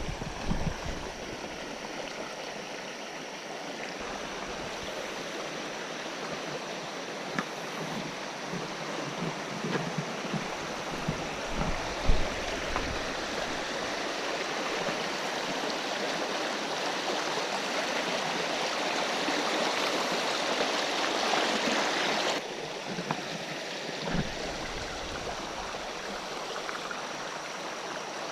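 Creek water rushing over rocks, a steady even rush that swells a little and then drops suddenly about three-quarters of the way through. A few low knocks and one sharper knock about halfway sound over it.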